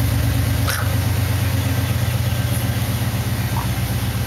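Engine idling, a steady low hum with an even pulse.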